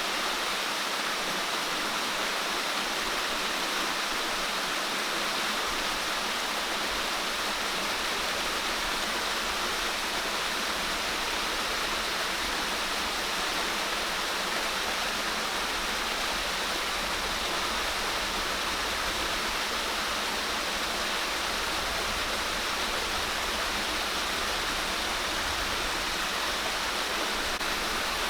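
Steady rushing water, an even hiss with no breaks or distinct impacts.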